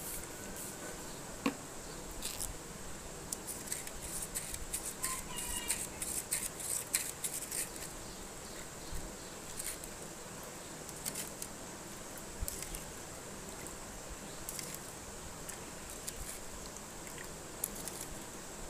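A spoon stirring inside a small plastic cup of water, making a string of light, irregular clicks and taps against the cup.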